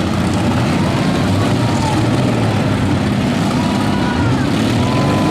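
Several compact cars' engines running and revving together, with whines that rise and fall in pitch.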